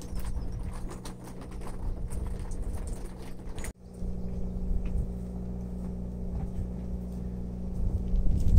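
Low wind rumble on the microphone over a steady mechanical hum, with many light taps and clicks during the first half. The sound drops out for an instant just before the middle.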